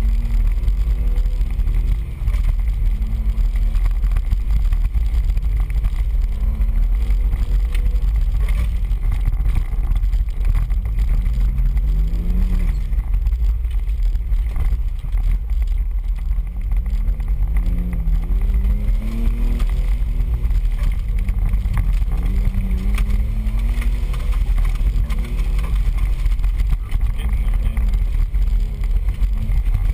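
An off-road 4x4's engine, heard from inside the cab, revving up and falling back again and again as it is driven hard along a rough dirt trail. Under it runs a heavy low rumble from the tyres and body on the rough trail surface.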